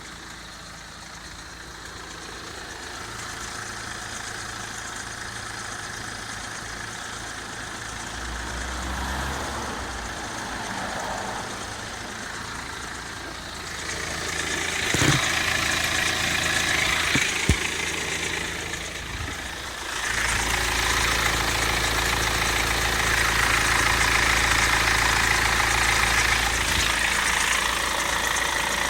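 BMW 116d's N47 four-cylinder diesel engine running, with a noise that the owner asks may be the timing chain. It grows louder about fourteen seconds in and again about twenty seconds in.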